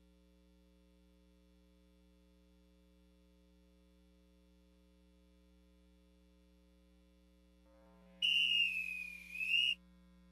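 Near silence for about eight seconds, then a single loud whistle blast lasting about a second and a half, its pitch sagging and then rising again.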